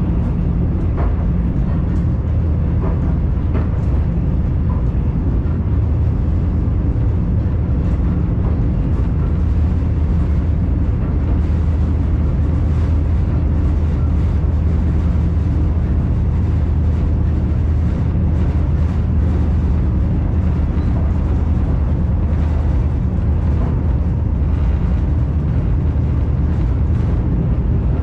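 Passenger train running along the track, heard from inside the carriage: a steady low rumble, with a few light clicks in the first few seconds.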